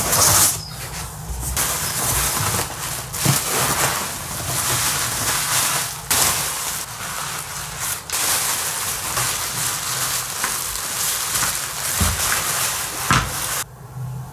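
Packaging being handled: a foam packing sheet and plastic zip bags rustling and crinkling, with light knocks. The crinkling cuts off abruptly near the end.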